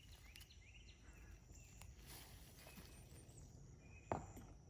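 Quiet outdoor ambience with faint, scattered bird chirps and one short, sharp knock about four seconds in.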